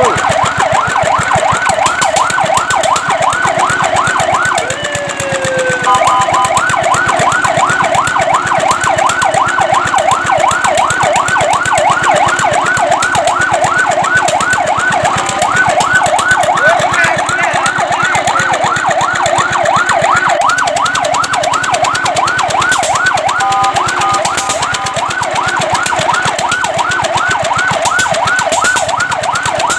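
Fire truck siren sounding a rapid rising-and-falling yelp. It briefly changes pattern about five seconds in, with a slower falling sweep and a short steady two-note tone, and again with a short steady two-note tone about twenty-four seconds in, then returns to the yelp.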